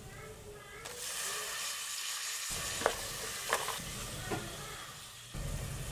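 Sliced tomatoes sizzling as they land in hot oil and fried onions in an aluminium pot. A spatula then stirs them, with three sharp clinks against the pot near the middle.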